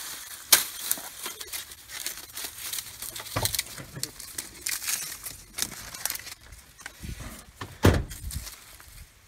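Hatchet chopping into a sugar cane stalk among dry cane leaves: a few sharp chops, the loudest about eight seconds in, amid crackling and rustling of the dry leaves.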